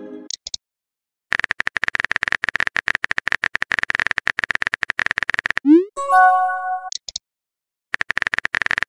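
Phone-keyboard typing clicks from a texting-story app, rapid and even, running for about four seconds. They end in a short rising swoop and a brief chime as a message pops up, and the typing clicks start again near the end.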